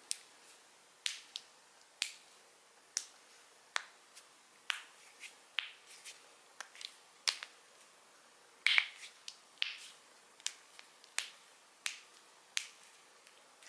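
Joints being cracked: about twenty sharp pops at irregular intervals, with a louder, longer crackle about nine seconds in.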